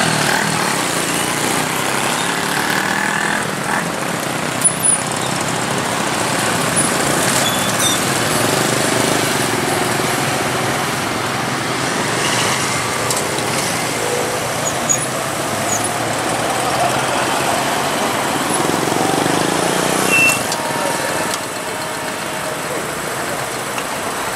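Diesel train engine running steadily; it drops in loudness about 21 seconds in.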